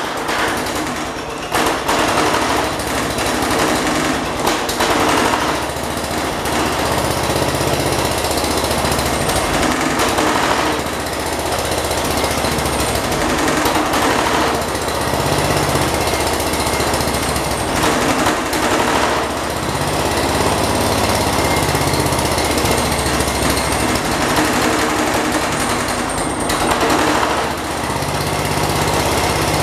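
A 1979 John Deere 214 garden tractor's single-cylinder Kohler engine runs loud and steady, its speed rising and falling several times. It is running on a carburetor the owner calls worn out.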